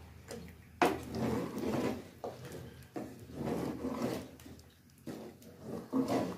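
A wooden spatula stirs and scrapes thick masala gravy in an aluminium pressure cooker, in repeated strokes, as the masala is fried.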